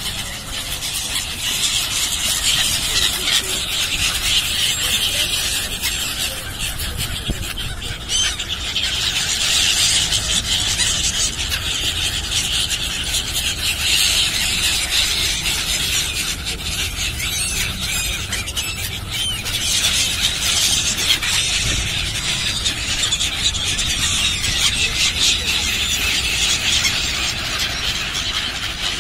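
A large flock of black-headed gulls calling continuously in a dense chorus of high, harsh, overlapping calls as they swarm for food.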